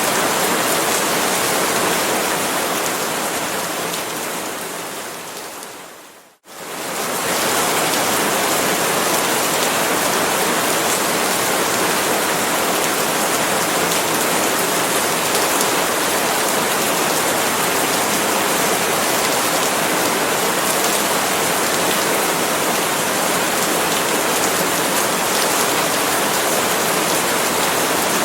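Steady, dense rain falling on palm leaves. About four seconds in it fades away to almost nothing and comes straight back up a second later, a join in the looped rain recording.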